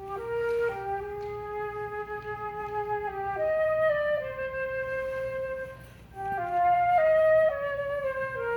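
Solo flute playing a slow phrase of long held notes, pausing briefly about six seconds in, then a falling line of notes.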